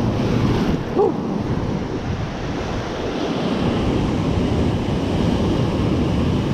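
Ocean surf breaking and washing against a rocky lava shoreline close by, a continuous rushing wash, with wind buffeting the microphone.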